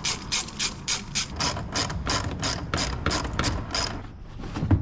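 Hand ratchet with a 7/16-inch socket turning a bolt, its pawl clicking in fast, even strokes of about five or six clicks a second. The clicking stops near the end, followed by a single knock.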